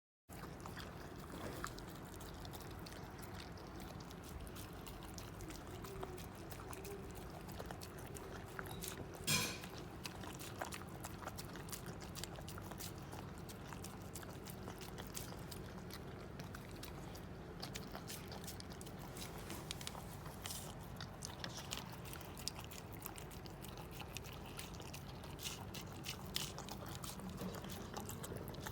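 A dog chewing and eating: scattered small crunches and clicks over a steady low background, with one louder knock about nine seconds in.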